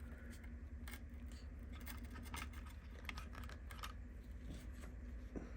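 Faint, irregular small clicks and scrapes of tiny plastic action figures being handled and pressed into the seats of a plastic toy spaceship, over a low steady hum.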